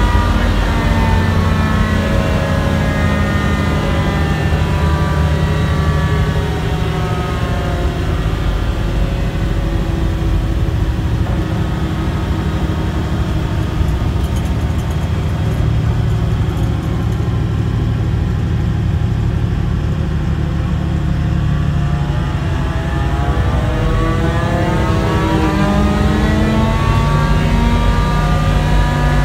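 Hovercraft lift fan driven by a hydraulic motor. Its pitch falls as the fan slows over the first ten seconds or so, stays low, then rises as the fan speeds up over the last several seconds. Under it the Steyr diesel engine idles steadily, its speed unchanged while the joystick alone sets the fan speed.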